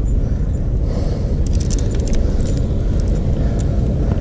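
Wind buffeting the microphone in a steady low rumble, with a short run of light metallic jingling and clicks about one and a half to two and a half seconds in.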